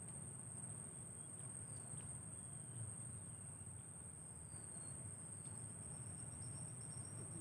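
Steady, high-pitched insect drone from the mangrove, with a few faint bird chirps and a short trill near the end, over a low background rumble.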